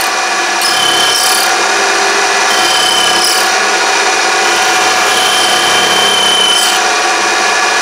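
Mini lathe running with a steady motor whine while the cutting tool scrapes a workpiece down in diameter. A thin, high squeal from the cut comes and goes about three times.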